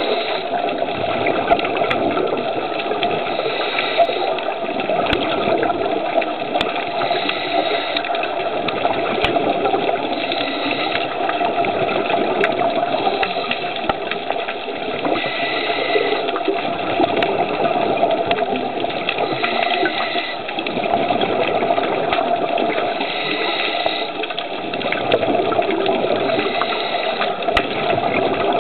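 Underwater sound through a dive camera's housing: a steady water rush with scattered sharp clicks, and a burst of the diver's exhaled regulator bubbles about every four seconds.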